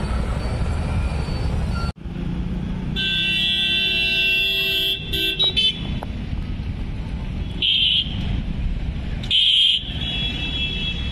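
Road traffic rumble with vehicle horns honking: one horn held for about two seconds, then several short honks.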